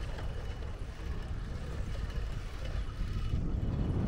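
Outdoor street ambience: a steady low rumble with a faint even hiss, no distinct events standing out.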